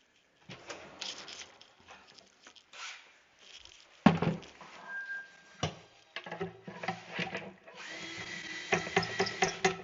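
Tool-handling clicks and knocks with two sharp knocks midway, then a power drill running steadily for about two seconds near the end.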